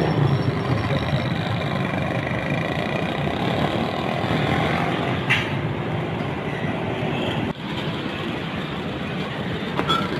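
Busy street traffic, mostly motorcycle engines running and passing, as a steady, continuous noise.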